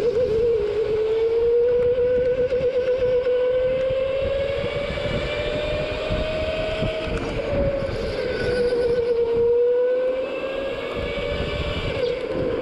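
Go-kart running at speed, heard from on board: a steady motor whine that slowly rises and falls in pitch as the kart speeds up and slows through the corners, over a low noisy rumble.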